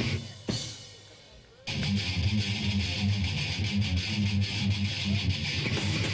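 Metal band playing live with heavy electric guitars. The band breaks off sharply right at the start, leaving a gap of about a second and a half with one sharp hit in it, then crashes back in together and plays on.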